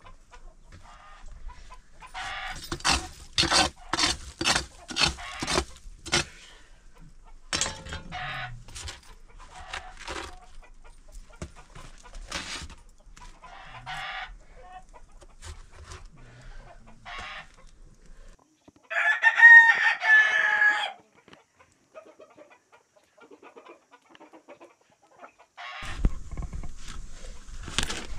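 Chickens clucking in a run of short, quick calls, then scattered single clucks, and a rooster crowing once, loudly, about two-thirds of the way in.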